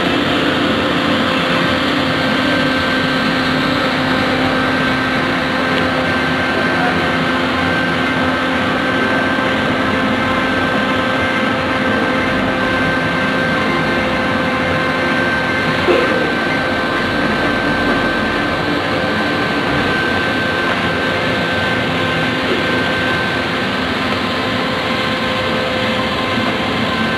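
Herz Planon automatic hot-air overlap welder running along a PVC tarpaulin seam: its hot-air blower gives a steady hiss with a steady motor whine. A single short knock about sixteen seconds in.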